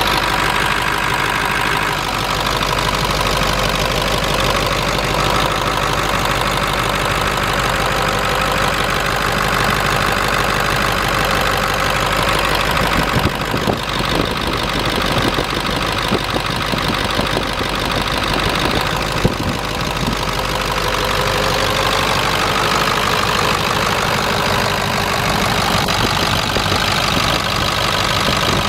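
Ford Power Stroke V8 turbo-diesel in a Super Duty truck, idling steadily with the hood open.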